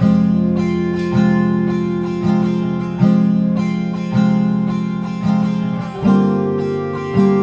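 Background music: an acoustic guitar strumming chords, about one strum a second, with a change of chord about six seconds in.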